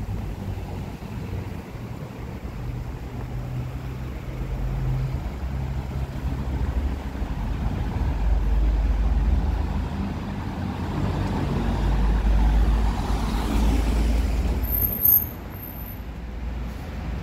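A motor vehicle's engine running with a low rumble. It grows louder through the middle and drops off suddenly about fifteen seconds in.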